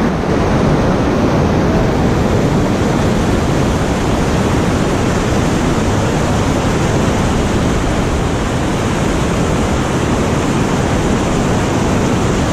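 Whitewater rapid rushing loudly and steadily, heard from right at the water's surface.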